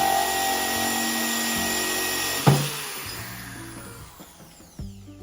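Electric drill running as it bores a hole through a ceramic plant pot. About two and a half seconds in the drill stops with a sharp click, and the motor winds down in falling pitch.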